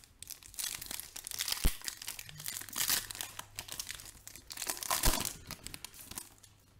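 Foil wrapper of a Panini Optic basketball card pack crinkling and tearing as it is ripped open by hand, in several bursts of rustling, with two sharp clicks along the way.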